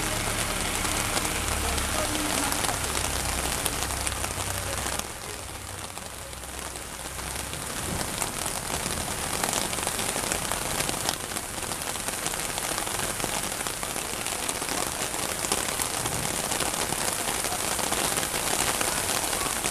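Heavy rain pouring down onto a street, cars and foliage, a dense steady hiss. For the first five seconds or so a tractor engine hums low underneath as the tractor drives by through the water, then fades.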